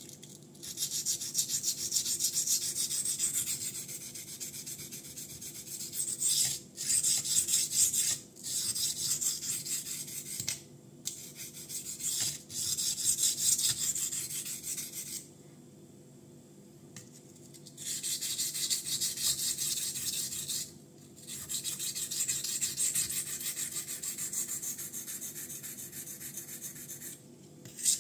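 Steel blade of a Ganzo Firebird F759M folding knife (440C steel) being stroked back and forth on a wet Binsui 1000-grit Japanese natural whetstone: a rapid, gritty scraping hiss. It comes in runs broken by short pauses, with a longer pause about halfway through.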